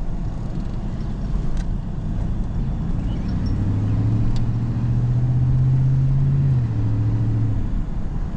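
Vehicle driving, with a steady low road and engine rumble. From about two and a half seconds in, an engine note rises, drops back at about six and a half seconds and fades out about a second later.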